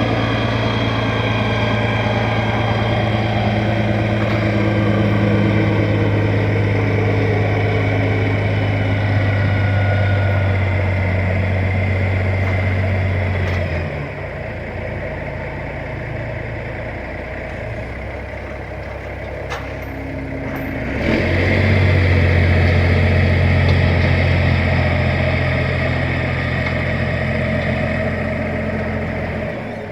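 An engine running steadily with a low hum. It drops away suddenly about halfway through and comes back several seconds later.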